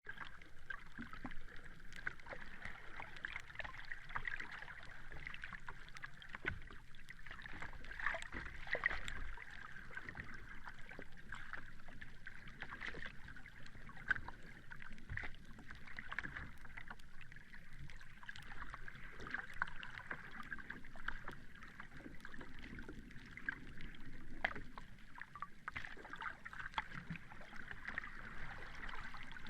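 Sea water lapping and washing gently: a steady hiss of moving water with many small crackles and splashes, swelling and easing a little from moment to moment.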